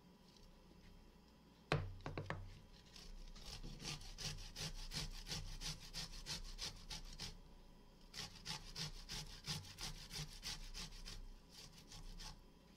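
Garlic cloves rubbed up and down a stainless steel box grater: quick rhythmic rasping strokes, about five a second, in two runs with a short pause near the middle. A sharp knock comes just before the grating starts, about two seconds in.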